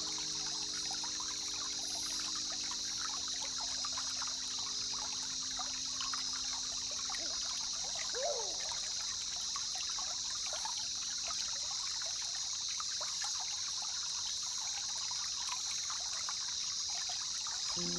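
Water trickling and lapping, many small crackles, over a steady high hiss.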